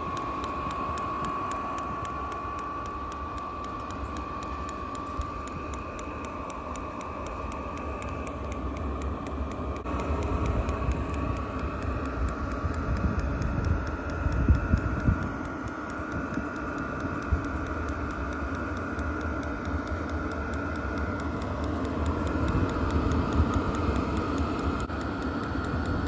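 Chinese diesel air heater running on homemade biodiesel: the combustion blower gives a steady whine that rises in pitch and gets louder about ten seconds in, and the fuel dosing pump ticks quietly and regularly.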